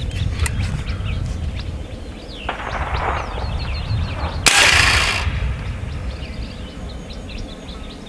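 A single shot from an AEA Terminator .30 caliber semi-auto PCP air rifle, its shrouded barrel giving a short, sharp report about four and a half seconds in. Birds chirp faintly in the background.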